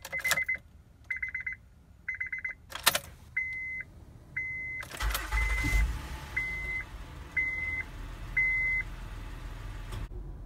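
A 2015 Honda Pilot's dashboard warning chime beeps about once a second, with a couple of sharp clicks from the ignition key. About five seconds in, the starter cranks and the 3.5-litre V6 catches, then settles into a steady idle under the continuing chime. The sound stops suddenly near the end.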